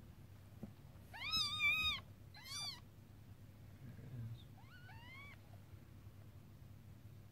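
Newborn kitten mewing: three high-pitched cries, a long loud one about a second in, a short one right after it, and a fainter one that rises and falls a couple of seconds later.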